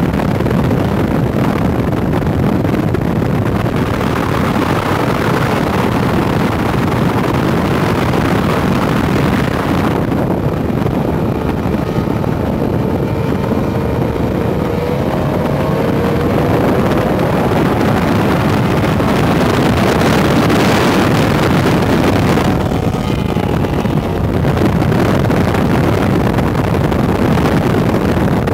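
Outboard engines of an SST 140 tunnel-hull race boat and the camera boat running at speed side by side, mixed with water rush and wind buffeting the microphone. A faint engine whine climbs in pitch about halfway through.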